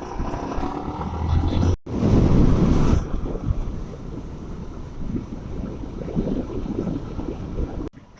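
Wind buffeting the microphone while riding a motorcycle, with the engine's low rumble underneath. The engine note rises in the first couple of seconds, and the sound cuts off abruptly twice, near two seconds in and near the end.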